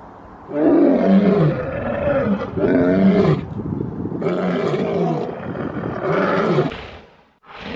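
Lion roaring: four long, deep calls, each falling in pitch, a second or so apart. A brief different sound comes near the end.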